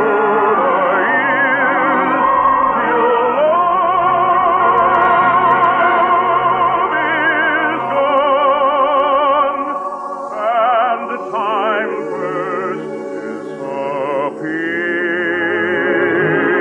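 Operatic singing with orchestra in a 1950s radio broadcast recording: long held notes with wide vibrato. About ten seconds in the accompaniment thins to a few separate rising and falling sung notes, then the full sound returns near the end.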